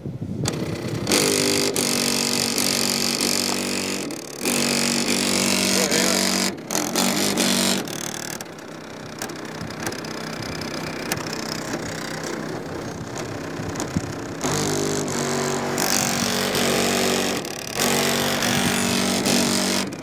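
Bass-heavy music played loud through a Digital Designs 12-inch 2500 car subwoofer, in loud stretches with a quieter passage in the middle.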